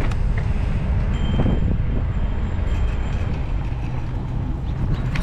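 Steady low rumble of wind on the camera's microphone and tyres rolling on pavement while riding an electric mountain bike.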